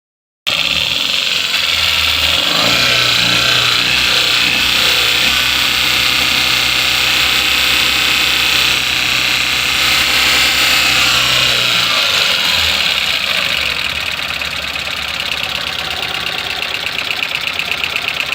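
Tata Ace Gold BS6 engine running with its drive belt chirping and slapping, a rapid 'chip chip chip, pat pat pat' that becomes a fast rhythmic chirp near the end. The noise comes from oil on the belt, which has leaked past a failed head gasket.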